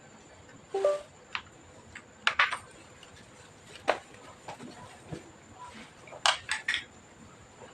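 Scattered sharp clicks and light taps of small plastic and metal parts and tools being handled while an all-in-one PC is worked on, with a quick run of three clicks near the end.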